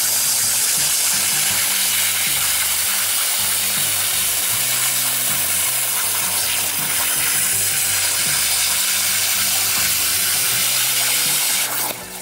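Garuda CNC plasma cutter torch cutting steel plate: a loud, steady hiss of the plasma arc that cuts off shortly before the end. Background music plays underneath.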